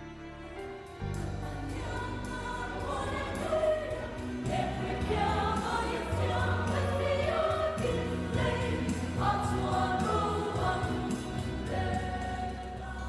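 A choir singing held chords with instrumental accompaniment and a bass line that moves in steps.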